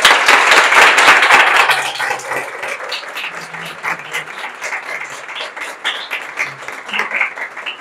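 Audience applauding, loudest for the first two seconds and then thinning out.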